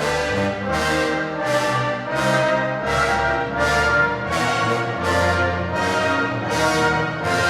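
Orchestral music led by brass, with a steady pulse of sharp percussive hits about every two-thirds of a second, played back through a floorstanding hi-fi loudspeaker and picked up by microphones in the room.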